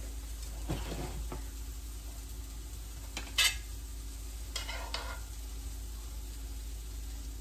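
Kitchen handling of metal tongs and a pan of cooked topping: a few soft knocks, one sharp loud clank about halfway through, then short scraping sounds as the tongs work in the pan, over a steady low hum.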